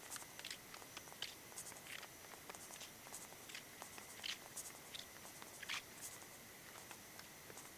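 Faint, irregular light clicks and ticks, a few a second, over a steady low hiss, with a few louder ticks scattered through.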